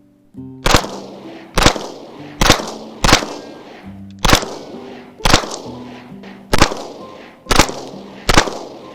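Nine pistol shots fired one at a time, roughly a second apart and unevenly spaced, each with an echoing tail. Background music plays underneath.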